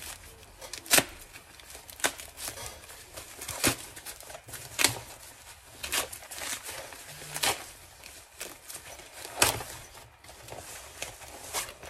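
Thin white plastic wrapping being torn open and crumpled by hand: an irregular crinkling rustle with sharp crackles every second or two.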